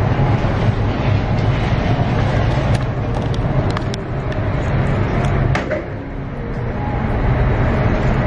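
Steady low drone of an indoor shooting range's ventilation running, with a few short sharp clicks around the middle.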